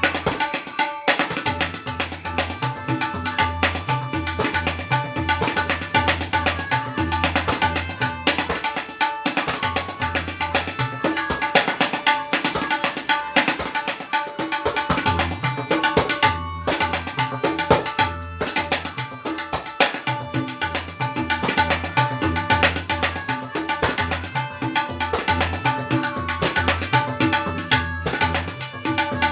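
Tabla solo in teentaal: rapid, dense strokes on the dayan with deep bass strokes from the bayan, over a steady sustained tone. The playing breaks off briefly twice, about 16 and 18 seconds in.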